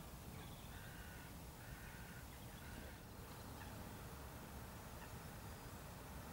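Three short, harsh, caw-like bird calls, about a second apart, over a steady low background rumble.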